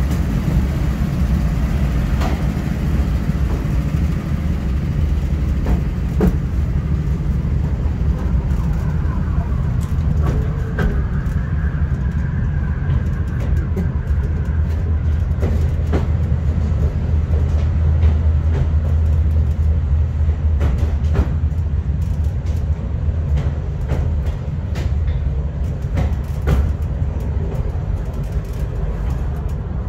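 Miniature park train running along its narrow-gauge track, heard from on board: a steady low rumble with sharp clicks and knocks now and then from the wheels on the rails.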